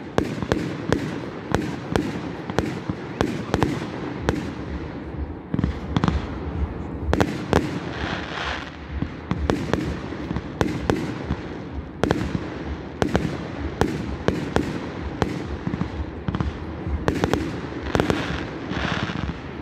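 Aerial fireworks display: shells bursting one after another in quick succession, sharp bangs a few per second over a continuous rumble, with a couple of denser stretches of hiss and crackle.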